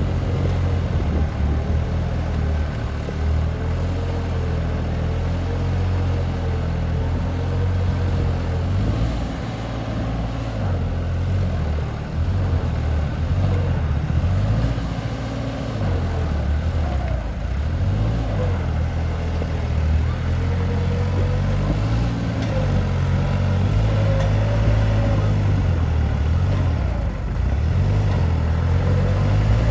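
New Holland 3630 tractor's three-cylinder diesel engine running under load as it pulls a cultivator through wet mud. Its note dips and rises several times as it works.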